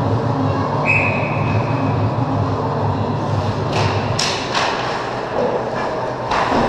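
Ice hockey play in a rink: several sharp clacks of sticks, puck and skates on the ice and boards, a cluster about four seconds in and another near the end, over a steady low hum that drops away after about three seconds.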